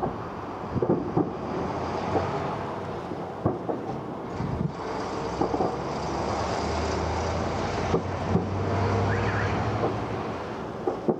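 Fireworks going off after an explosion: scattered sharp pops and bangs over a steady rumble, with a low hum swelling in the middle.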